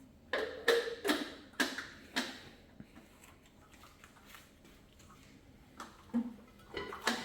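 Dishes and dishwasher parts being handled: a quick run of about five sharp clacks and clatters in the first two seconds, then a few more knocks near the end.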